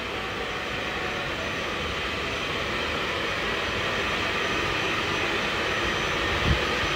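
Hand-held electric hair dryer blowing steadily on hair, its steady rush growing slightly louder. A brief low bump near the end.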